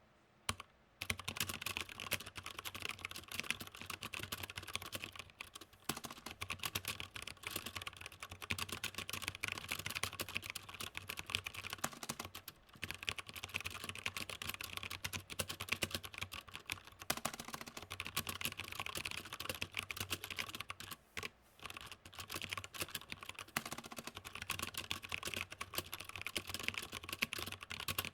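Fast, continuous typing on a Velocifire TKL78 mechanical keyboard with unlubed Outemu Brown tactile switches and stock keycaps, the keyboard resting on a wooden surface. The dense key clacks begin about a second in and break off for a few brief pauses.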